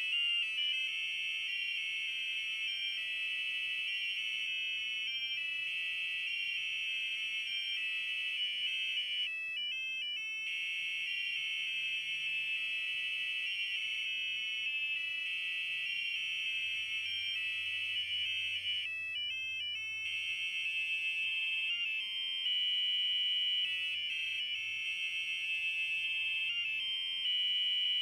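Three piezo buzzers driven by an Arduino Nano playing a pop song's melody as shrill electronic beeping notes, several at once and changing quickly from note to note. The tune stops briefly about nine seconds in and again about nineteen seconds in.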